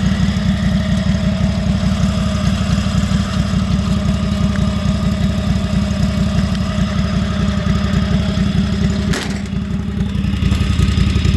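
Lawn mower engine running steadily at idle, its exhaust let out through a truck exhaust pipe strapped onto the mower's exhaust. The engine is warming up. About nine seconds in there is a short click and a brief dip, then it runs a little louder again.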